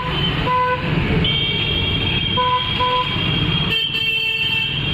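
Street traffic with several short vehicle horn toots, some in quick pairs, over a steady rumble of passing engines. A thin, steady high-pitched whine runs through the middle.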